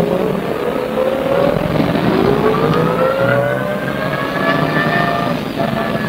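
MAN SL200 city bus heard from on board, its drivetrain whining and rising steadily in pitch as it accelerates, then levelling off near the end, over a rumbling engine and road noise.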